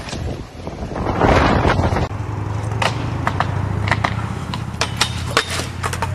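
Wind gusting on the microphone, swelling loudest a little past one second. Then a run of sharp, irregular clicks and knocks from a skateboard on pavement, over a low steady hum.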